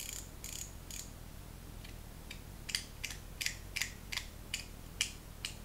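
Ratchet of a metal YEDC fidget coin clicking as its two halves are twisted: spring-loaded pawls snap over the teeth, freshly reassembled and working again. The clicks are sharp and separate, a quick run at first, then after a pause a slower, irregular series of about two or three a second.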